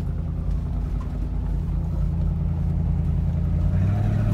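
Off-road SUV's engine heard from inside the cabin while driving a gravel track: a steady low drone that steps up slightly in pitch and grows a little louder near the end as the vehicle accelerates.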